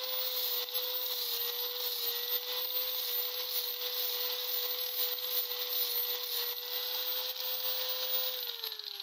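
Electric angle grinder running at full speed with an abrasive disc, grinding a steel knife blade: a steady whine with a hissing grind. Near the end it is switched off and the whine falls as the disc spins down.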